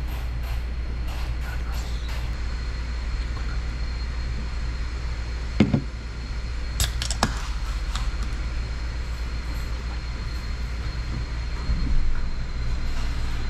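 A steady low hum with a few light knocks and clicks about six to seven seconds in, and a soft thump near twelve seconds.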